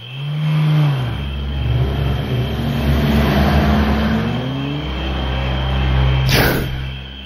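Car engine revving hard as the car accelerates, its pitch sliding up and down, with a sudden loud burst about six seconds in.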